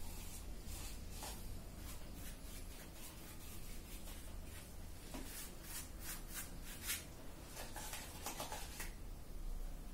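A paintbrush and hand working primer into cotton fabric stretched on a frame: soft, irregular brushing and rubbing strokes, over a low steady hum.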